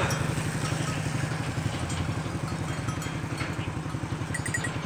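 A small engine running steadily at idle with a fast, even chugging beat.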